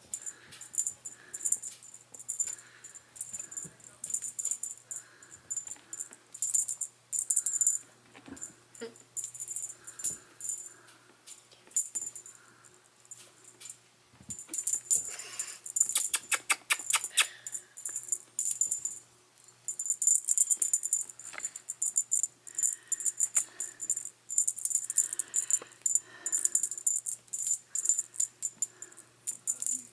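A cat teaser toy rattling in quick, irregular bursts as a Bengal kitten bats and plays with it, busiest in the middle and latter part.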